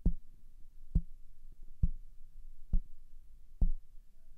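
Fingers tapping on the body of a Shure SM7B dynamic microphone, picked up by the microphone itself as handling noise: five dull, low thuds a little under a second apart, each with a short low ring, a test for body resonances.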